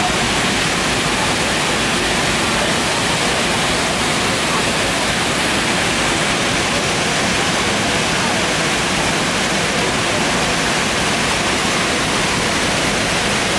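Waterfall pouring over a concrete dam, heard up close: a steady, loud rush of falling water.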